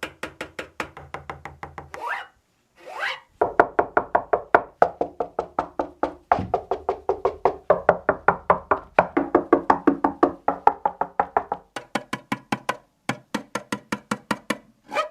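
Music played through a GOVO GoSurround 999 soundbar during an audio test: a fast, even run of short, clipped notes and beats, about four a second, that turn to sharper clicking hits near the end.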